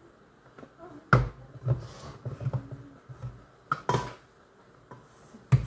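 Knocks and taps of an electric coffee grinder held upside down and tapped to shake out freshly ground coffee: a sharp knock about a second in, a run of lighter taps, two more knocks near the middle and a hard knock at the end.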